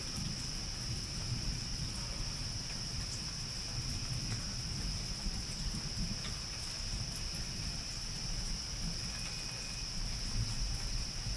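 A steady, high-pitched chorus of night insects, unbroken throughout, over a constant low rumble.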